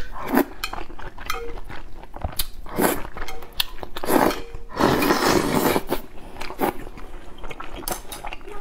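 Close-up eating sounds: noodles being slurped and chewed in several short bursts and one longer slurp a few seconds in, with light clicks of chopsticks against the plate.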